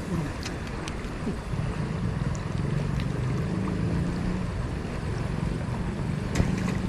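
Wind rumbling on the camera microphone over a flowing river, with a low steady whirr from about a second and a half in as the Daiwa Revros spinning reel is cranked to retrieve the lure.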